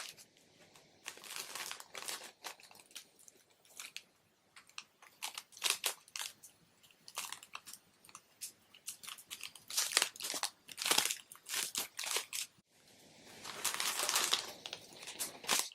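Parcel packaging being handled and opened by hand: irregular crinkling, rustling and tearing in quick bursts, with the densest stretches about two-thirds of the way in and near the end.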